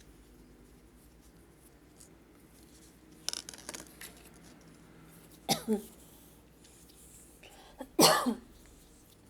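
A person coughing: a quick double cough about five and a half seconds in, then a louder cough about eight seconds in.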